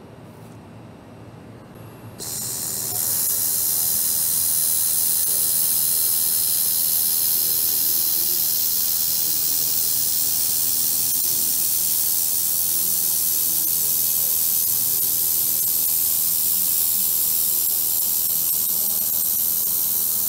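1.5 kW handheld laser welding torch running a weld on stainless steel against copper: a loud, steady, high-pitched hiss of shielding gas and welding that starts about two seconds in.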